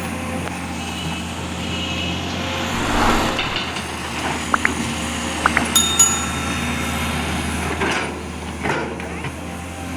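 Excavator engine running steadily, with a few short metallic clinks about halfway through.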